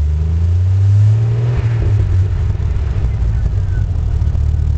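Jeep Wrangler's 4.0 L inline-six exhaust through a Cherry Bomb Turbo muffler, with a deep, throaty note. The engine is blipped once, rising for about a second, then drops back to a steady idle.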